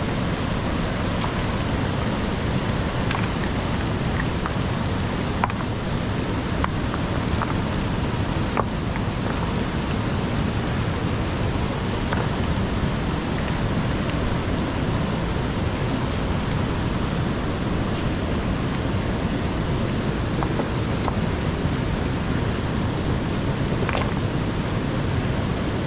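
Shallow, fast mountain river rushing over stones, a steady loud flow of water, with a few faint clicks as stones are knocked together.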